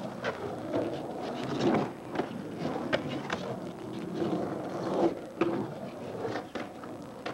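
Skateboard wheels rolling over the rough concrete of an empty swimming pool, a steady rumble broken by scattered clacks and knocks of the board.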